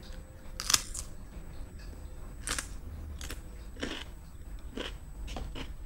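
About seven short, sharp clicks at uneven intervals over a low rumble; the first, about three-quarters of a second in, is the loudest.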